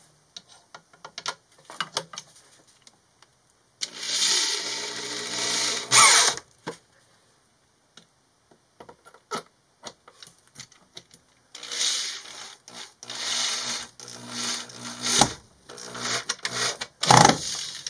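Corded DeWalt electric drill driving screws into plywood. It runs once for about two seconds some four seconds in, then in several shorter runs near the end, with light clicks and knocks of handling between.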